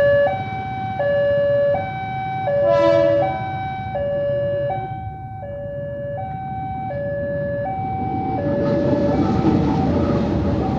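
Indonesian level-crossing warning alarm sounding, an electronic two-tone signal alternating steadily between a high and a low note. A short horn blast sounds about three seconds in. Near the end the rumble of the approaching train builds up beneath the alarm.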